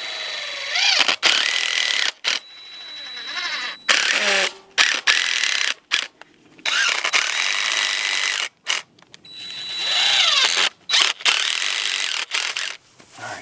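Cordless drill driving screws, running in several separate bursts of one to two seconds, its motor pitch gliding as some bursts start and stop.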